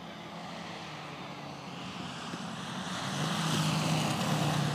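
The three Moki five-cylinder four-stroke radial engines of a giant-scale Junkers Ju 52 model airplane droning steadily in flight, growing louder over the last couple of seconds as the plane passes low and close.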